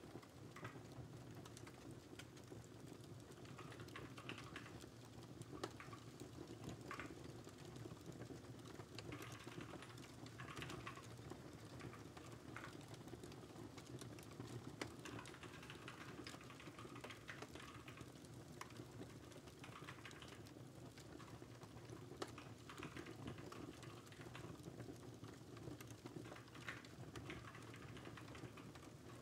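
Computer keyboard typing in irregular bursts, with a few sharper single clicks, over a faint steady crackling fireplace bed.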